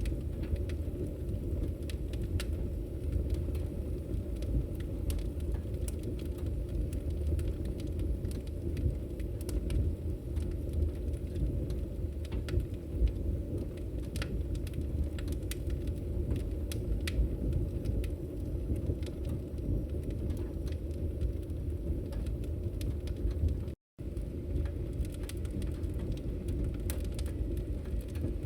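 Wood fire in a fireplace crackling: frequent small sharp pops and snaps over a steady low rumble of burning. The sound drops out completely for a split instant about four-fifths of the way through.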